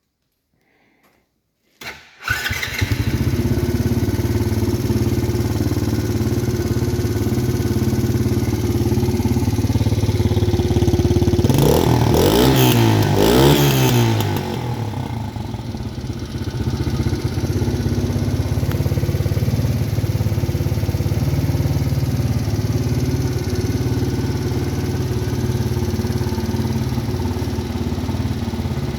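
Fusion MAD-X 110 ATV's 110cc four-stroke single-cylinder engine starting about two seconds in and idling steadily. Near the middle it is revved up and down a few times in quick succession, then it drops back to idle.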